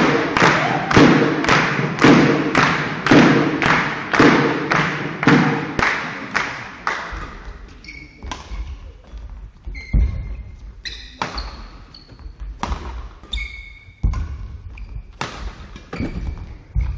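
Spectators clapping in rhythm, about four claps a second with a heavier thump about once a second, dying away in the first half. Then a badminton rally: sharp racket strikes on the shuttlecock about every second and a half, with shoe squeaks on the court floor, echoing in a sports hall.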